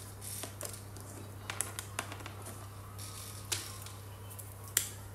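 Plastic felt-tip marker pens being handled and set down on a table: a string of sharp, irregular clicks and light clatter, the loudest two near the end.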